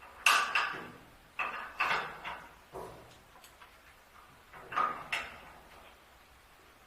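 Light knocks and clinks of hard metal parts struck or set down against each other, in irregular clusters of two to four.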